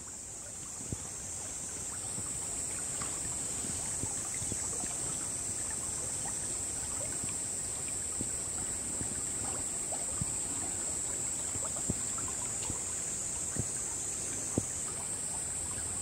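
Shallow stream babbling over stones, with small scattered splashes and trickles, under a steady high-pitched hiss. It fades in over the first couple of seconds.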